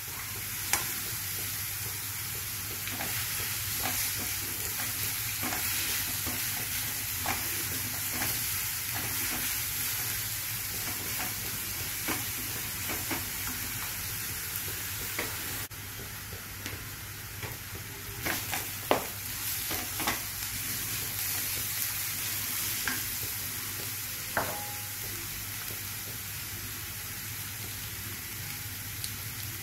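Chopped onions frying in oil and ghee in a nonstick wok, sizzling steadily as they begin to brown. A spoon and then a silicone spatula stir and scrape them, with sharp taps on the pan now and then, most of them a little past the middle.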